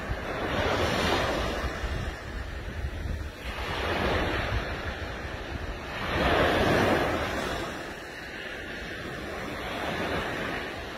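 Surf washing onto a sandy beach, swelling and fading every two to three seconds, with wind rumbling on the microphone.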